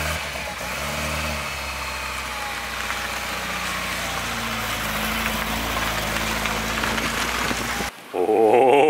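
Volvo 940 hearse's engine idling steadily, its pitch drifting up and down slightly. It cuts off about eight seconds in, and a louder wavering, pitched sound takes over near the end.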